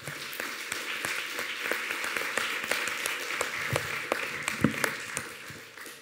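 Audience applauding: many hands clapping in a dense patter that fades out near the end.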